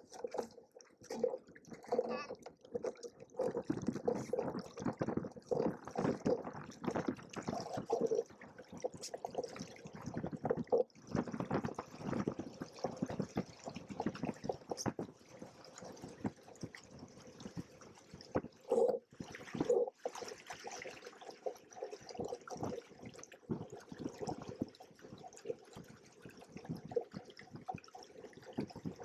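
Water splashing and slapping irregularly against the hulls of a Hobie Cat 16 catamaran on the water.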